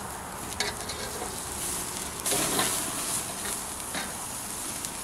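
Steaks sizzling on a grill grate over flaring charcoal. There are a few short clicks and a louder rasp about two seconds in as metal tongs turn the meat.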